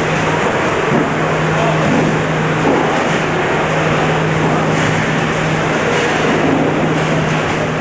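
Loud, steady din with a constant low hum running under it, briefly broken a couple of times.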